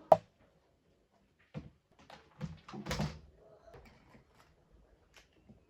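A sharp click right at the start, then a few scattered knocks and thumps of things being handled.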